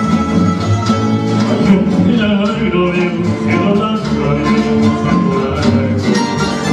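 Rondalla string ensemble playing: plucked and strummed guitars over a double bass.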